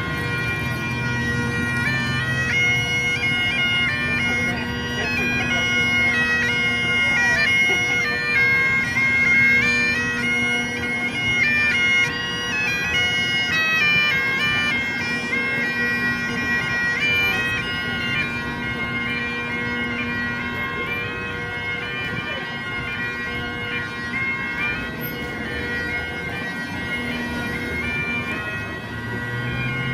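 Highland bagpipes played solo: a chanter melody over the steady drones, continuous throughout and a little quieter in the second half.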